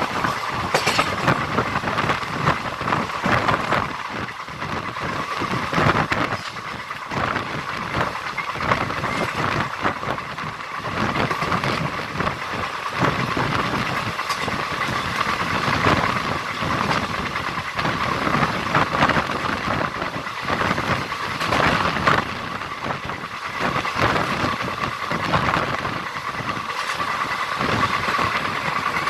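Siddhaganga Intercity Express passenger train running along the track: a continuous rumble of the wheels with irregular clacks over rail joints, and a steady high hum.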